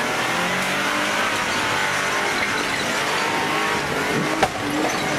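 Jeep Wrangler JKU engine revving hard under load while climbing a steep dirt hill, its pitch rising and falling as the tyres spin for grip. A sharp knock cuts through about four seconds in.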